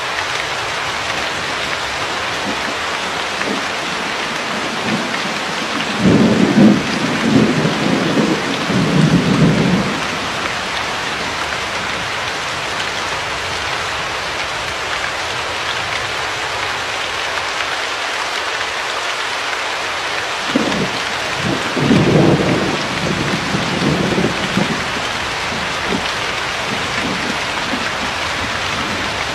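Steady rain, with thunder rumbling twice: once about six seconds in for around four seconds, and again about twenty-two seconds in for a few seconds.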